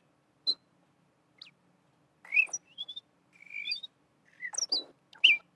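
Bird chirps and whistles played back from sampled bird calls laid out with randomized timing into an ambience. Short single calls come at uneven gaps, several of them sliding up in pitch.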